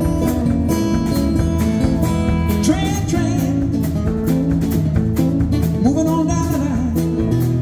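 Live acoustic band playing: two strummed acoustic guitars, upright bass and a drum kit keeping a steady beat, with a male voice singing lines about three and six seconds in.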